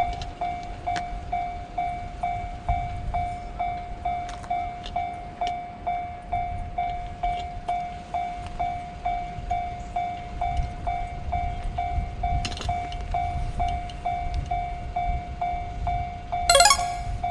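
Japanese level-crossing warning bell ringing in a steady, even rhythm, about two dings a second, over a low rumble. A short, sharp chirping sound breaks in near the end.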